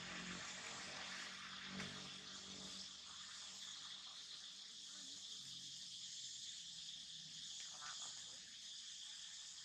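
Faint forest ambience: a steady high drone of insects, with a faint low engine hum beneath it and a soft tap about two seconds in.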